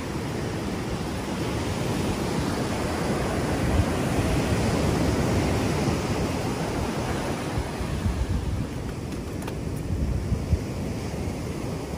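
Ocean surf breaking and washing up a sandy beach, with wind buffeting the microphone; the wash swells about midway. A few light clicks come near the end.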